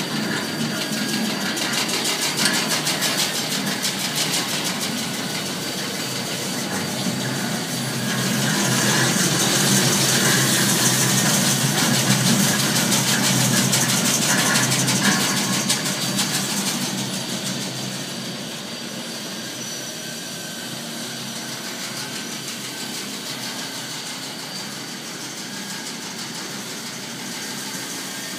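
CFS OptiFlour flour-coating machine running: a steady mechanical clatter from its wire-mesh conveyor belt and drives over a motor hum. It is louder for several seconds in the middle and quieter from about two-thirds of the way through.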